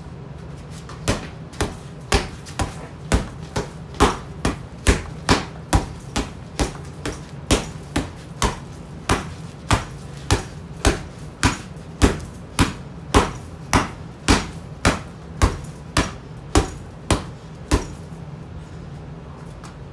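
Gloved punches landing on a leather heavy bag lying on a concrete floor, about two a second in an uneven rhythm. They start about a second in and stop near the end, around 35 strikes in all.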